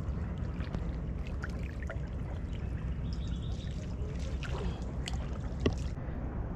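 A small fishing boat's engine running low and steady, with water splashing and dripping over it and one sharp knock near the end.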